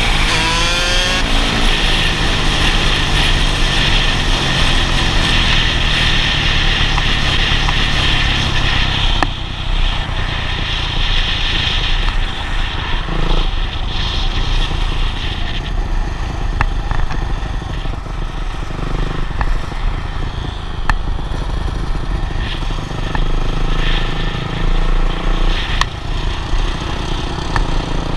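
Dirt bike engine running at road speed under heavy wind rush on the microphone, with a rising rev about a second in.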